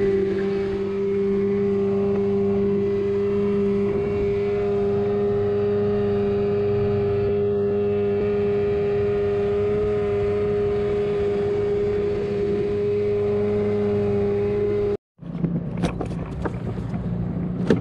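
Small boat's outboard motor running at a steady cruising speed, a constant droning note, with the boat underway. About fifteen seconds in it cuts off abruptly and a few clicks and knocks follow.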